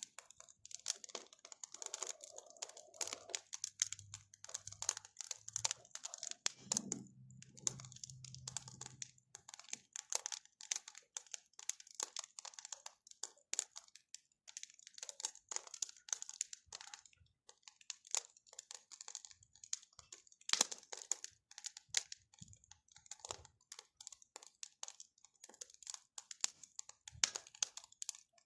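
Wood bonfire crackling and snapping in quick, irregular pops.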